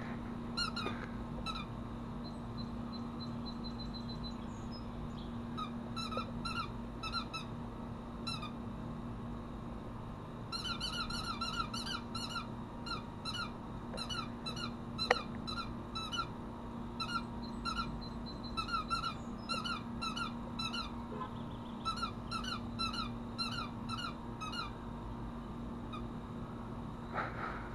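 Rubber squeaky dog toy squeaking over and over as a small dog chews it, in quick runs of short squeaks. A steady low hum from a running air-conditioner condenser unit lies underneath, and there is one sharp click about halfway through.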